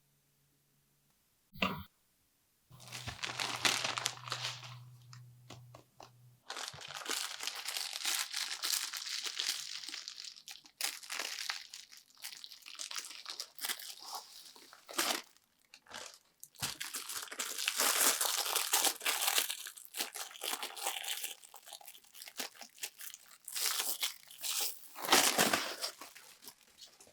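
A parcel's packaging being torn and crumpled open: long stretches of crinkling, rustling and tearing with short pauses between them. A short click comes just before it starts, and a low hum sounds under it for a few seconds early on.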